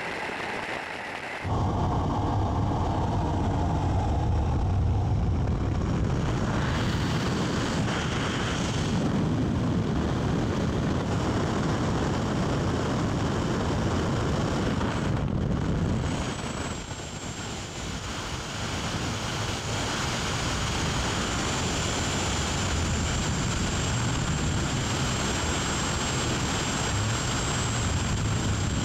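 Loud steady rush of air and aircraft engine noise at a jump plane's open door, starting abruptly about a second and a half in. After a change about halfway, the rush of freefall wind on a skydiver's camera, with a faint high whine held steady over it.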